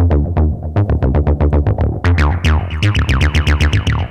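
TB-303-style acid synth bassline played through a distortion plugin: a fast run of squelchy notes, each with a falling filter sweep, heavy and totally distorted in the bass. It turns brighter about halfway through.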